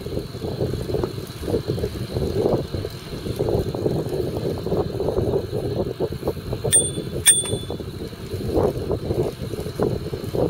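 Riding a bicycle: a steady rumble of wind and road noise, and a bicycle bell rung twice about seven seconds in, two short dings half a second apart.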